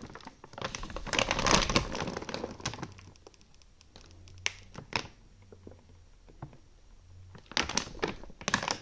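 Foil-lined plastic dry dog food bag crinkling as it is handled and turned. It crinkles for about the first two and a half seconds, goes quieter with a few sharp crackles, then crinkles again near the end.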